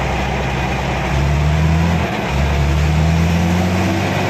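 Tractor diesel engine heard from inside the cab, pulling under load. It gets louder about a second in, dips briefly around two seconds, then comes back up with its pitch creeping slightly higher as black smoke puffs from the exhaust stack.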